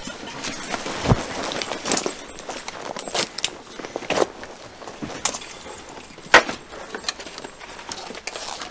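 Pilot's flight gear being strapped on in a hurry: clothing rustling, with irregular clicks and knocks from buckles and fittings, the sharpest about six seconds in.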